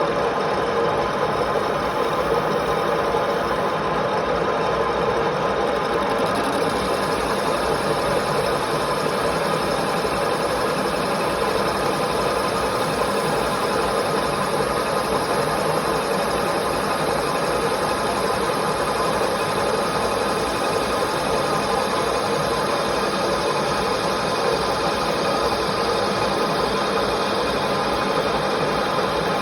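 Lathe turning aluminium: steady machine running noise with several fixed hums, and a high thin whine that joins about six seconds in.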